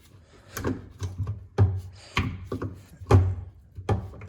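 A run of about eight irregular clunks and knocks, each with a low thud, as a shifter cable is pulled and worked into place during a shifter install.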